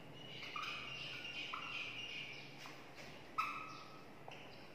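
Marker pen squeaking against a whiteboard as words are written, in several short squeaks about a second apart.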